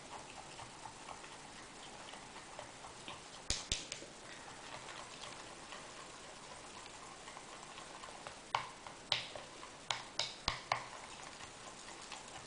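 Stick stirring a thick mix of PVA glue and shaving foam in a glass bowl: soft, wet ticking throughout, with sharper clicks where the stick knocks the bowl, three close together a few seconds in and six more near the end.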